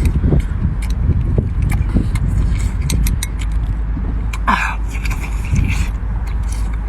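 Close-up eating sounds: a man chewing and smacking on cooked sea snail meat, with many short wet clicks and a couple of brief slurps, over a steady low rumble.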